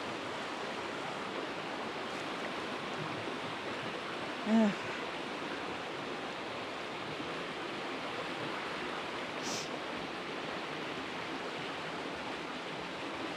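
A small mountain creek rushing steadily over rocks. About four and a half seconds in, a brief vocal sound from a person cuts in over the water.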